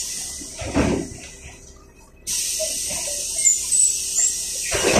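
Cabin noise of a LiAZ 5292.67 city bus on the move. A high hiss drops out briefly about two seconds in, and there are low thumps from the body going over bumps, about a second in and again near the end.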